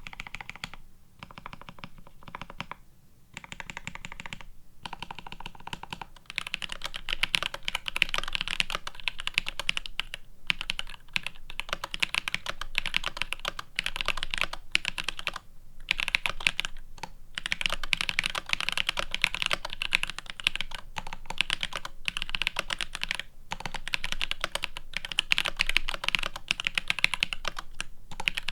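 Typing on a GRID650 mechanical keyboard, plateless PCB-mount with GMK keycaps. For about the first six seconds the keys are Vermilion Bird linear switches, pressed sparser and quieter. After that the switches are Azure Dragon tactiles, in a louder, continuous run of keystroke clicks with a few short pauses.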